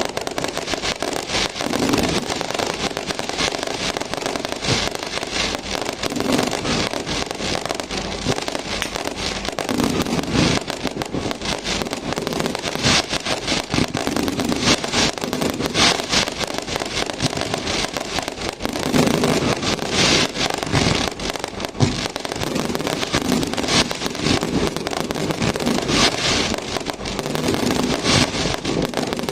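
Firecrackers and fireworks going off without pause: a dense, steady crackle with louder bangs every few seconds.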